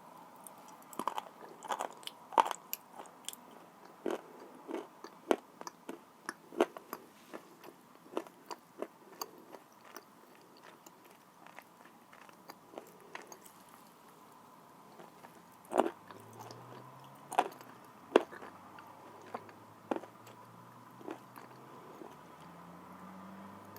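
Dry blue Uzbek clay being bitten and chewed close to the microphone: a string of short, sharp crunches, thickest in the first half, with a few louder cracking bites past the middle.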